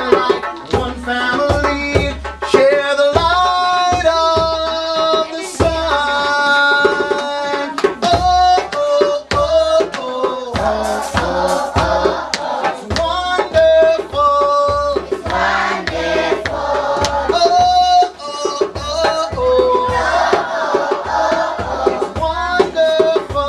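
Singing voices carrying a melody over a steady hand-drum beat.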